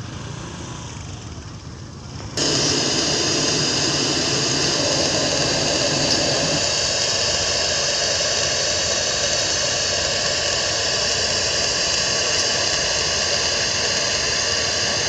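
A loud, steady hiss from a large outdoor sound system, cutting in suddenly about two seconds in and holding even with no beat. It is played in place of music during a sound check.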